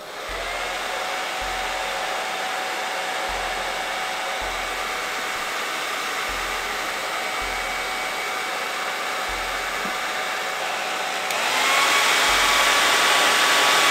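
Handheld hair dryer switched on and running steadily, blowing air with a whine in its hum. About eleven seconds in it gets louder and its whine rises in pitch.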